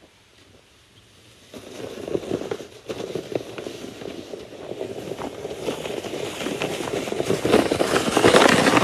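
Boots crunching on packed snow and a loaded sled scraping over it, starting about a second and a half in and growing louder as the walker and sled come up close and pass.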